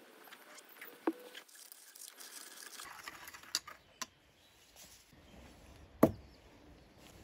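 A glass stirring rod clinking lightly against a glass beaker of dark slurry a few times, then a louder single knock about six seconds in as a glass beaker is set down on the table.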